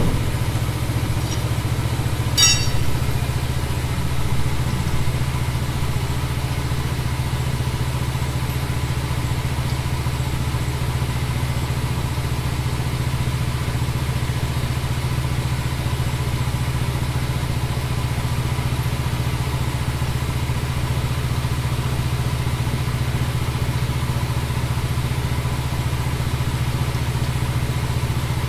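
An engine running steadily at idle, a constant low hum, with a sharp metallic click about two seconds in.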